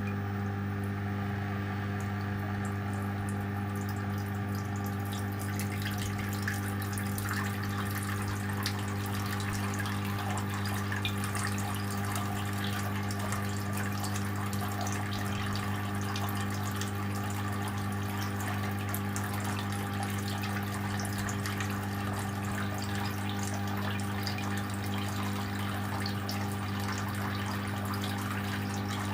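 Small water pump running a clay-pot tabletop fountain: a steady low hum under water trickling and splashing. The splashing grows fuller about five seconds in.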